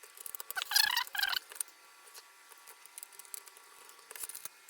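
Small clicks and taps of hardware being handled as the cooling fan is refitted into a Mac mini G4 case with its screws, with a brief louder rattle about a second in.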